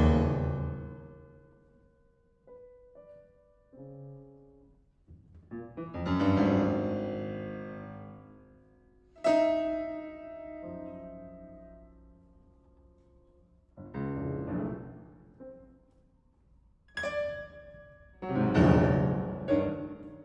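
Solo classical piano: loud struck chords that ring on and die away, with quiet single notes in the pauses between them.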